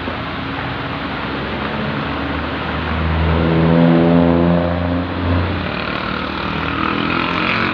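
A motor vehicle passing, its engine hum swelling to loudest about four seconds in and then easing, over a steady hiss.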